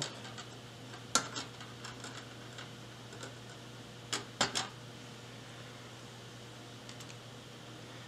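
Light clicks and taps of tools and parts handled on a workbench during soldering: a sharp click about a second in and a quick double click around four seconds, over a steady low hum.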